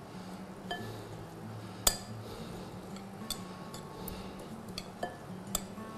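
A utensil clinking against a glass mixing bowl as a tabbouleh salad is tossed: about seven separate ringing clinks, the loudest about two seconds in.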